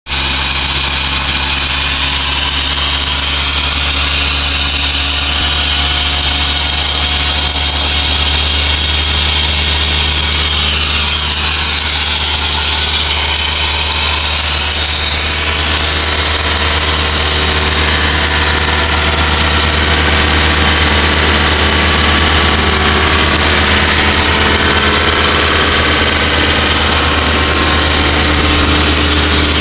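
Diesel engine of an Ingersoll Rand P185 portable air compressor running steadily, a constant low drone with a hiss above it.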